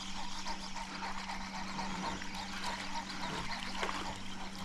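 Faint, scattered animal calls over a steady low hum.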